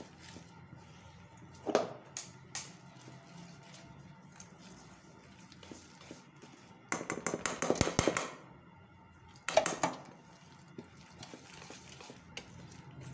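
Wire whisk beating thick gram-flour pakora batter in a steel bowl, clattering against the metal. A few separate clicks come early, a long fast run of rattling comes about midway, and a shorter burst follows.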